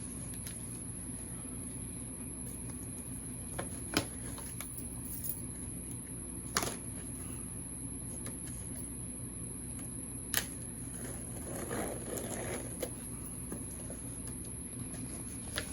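Box and packing material being handled during an unboxing: three sharp clicks or snaps spread through, and soft rustling about two-thirds of the way in, over a steady low room hum.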